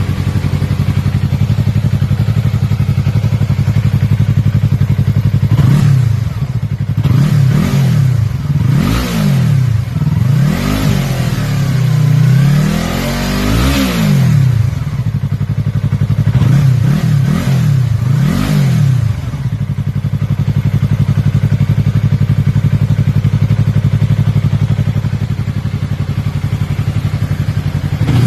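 Yamaha YZF-R3's parallel-twin engine breathing through an Akrapovic M1 exhaust, idling steadily, then blipped through a quick series of short revs, one held a little longer, before settling back to idle.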